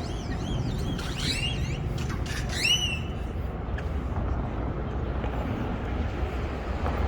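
Bird calls: a few high warbling whistles and rising and falling glides in the first three seconds, over a steady low background rumble.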